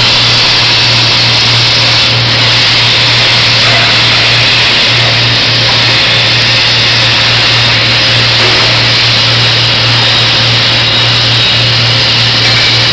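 Electric arc welding: the arc sizzles and crackles steadily and without a break, throwing spatter, over a steady low hum.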